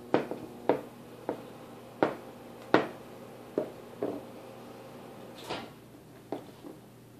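Irregular knocks and taps, about ten of them, as a baby's hands and a raw carrot hit the plastic tray of a high chair.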